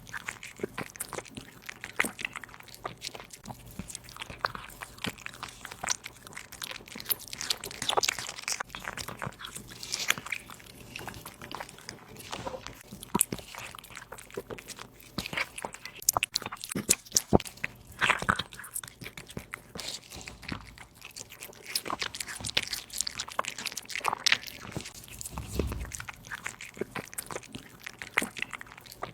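A kitten chewing and crunching meat: close, irregular bites and crunches, some sharper and louder than the rest.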